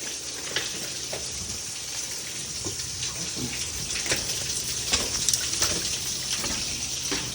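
A small waterfall splashing: a steady rush of falling water with many separate drips and splashes over it.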